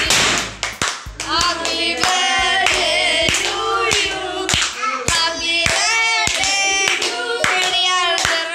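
A birthday song sung with hands clapping along, over music.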